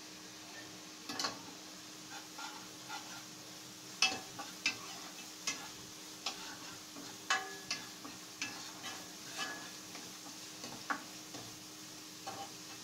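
Steel ladle scraping and tapping against a non-stick kadhai as onion-ginger masala is stirred while it fries, in irregular strokes about every half second to second. A faint sizzle and a steady low hum sit underneath.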